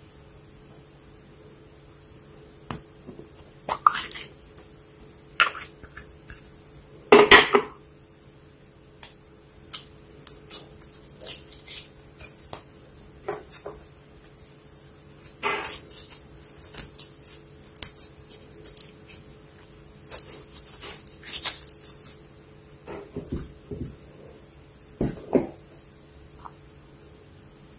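Slime being squished and poked by hand, making irregular sticky clicks and pops, the loudest about seven seconds in.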